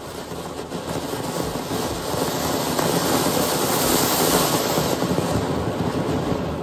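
Ground fountain firework (anar) spewing sparks: a dense hissing rush with crackle that builds over the first couple of seconds, holds, and eases slightly near the end.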